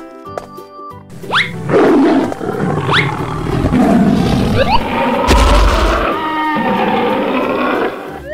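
Tiger growling and roaring, starting about a second in, over light children's background music, with a few quick rising swish effects and a deep boom about halfway through.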